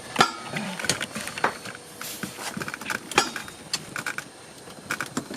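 Irregular sharp clicks and knocks of hand tools and small metal parts being worked on a car's shifter linkage. The loudest comes about a quarter second in and another just after three seconds.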